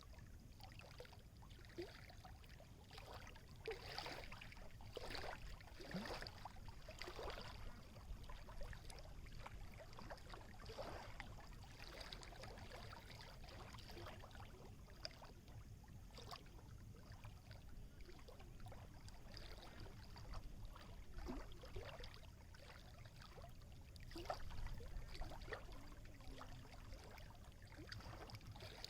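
Small waves lapping and splashing, a quick irregular run of little splashes over a steady low rumble.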